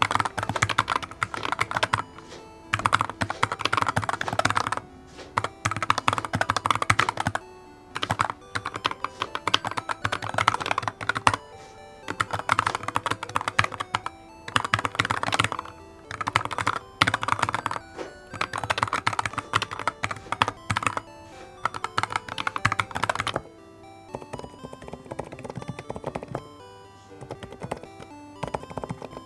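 Keyboard typing: fast bursts of keystrokes lasting a second or two, separated by short pauses, over soft background music. The typing grows quieter and sparser near the end.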